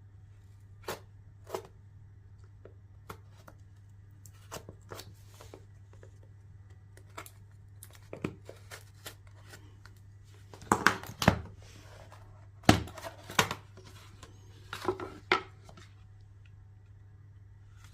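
Hands opening a smartphone's cardboard retail box: scattered taps, scrapes and the tearing and rustle of packaging, with a cluster of louder knocks and scrapes a little past the middle.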